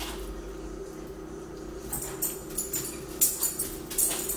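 Close-up eating sounds of a mukbang: wet chewing clicks and smacks at the microphone, several of them in the second half, over a steady hum.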